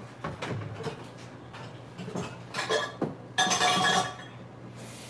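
Metal pot and kitchen utensils knocking and clinking on a counter, with a louder clattering clank about three and a half seconds in.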